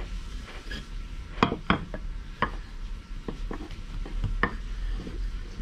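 Irregular knocks and taps of hands, dough and a wooden rolling pin on a wooden table as bread dough is kneaded and handled. The loudest knocks come about a second and a half in, with more scattered through.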